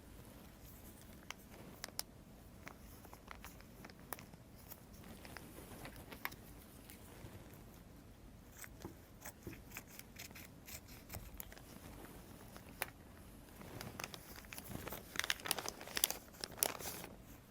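Plastic anti-rust packaging bag being torn open and handled, crinkling and crackling with scattered small clicks; the crinkling gets busier and louder near the end.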